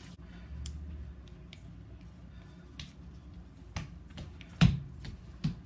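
Chopsticks stirring a stiff, sticky ground-beef meatball mixture in a stainless steel pot, knocking against the metal in scattered sharp clicks about once a second; the loudest comes a little before the end.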